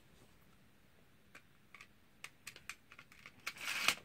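A string of small, sharp plastic clicks starting about a second in, from a Beyblade that has stuck on its launcher being worked loose by hand, then a brief louder rustle near the end.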